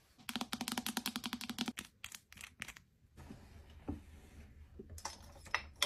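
A quick run of light, evenly spaced clicks lasting about a second and a half, then a few scattered clicks and faint handling noise among cosmetic containers.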